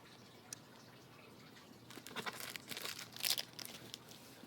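Cardboard box and packing material being opened by hand: a small click, then about two seconds in a run of rustling, crinkling and scratchy tearing sounds.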